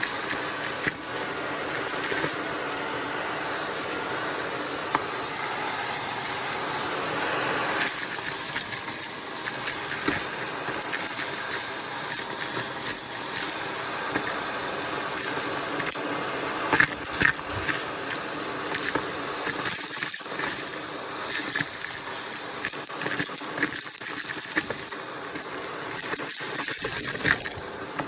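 Vacuum cleaner running steadily with its crevice tool, with crunchy debris clicking and rattling as it is sucked up through the tool. The clicks grow busier in the second half.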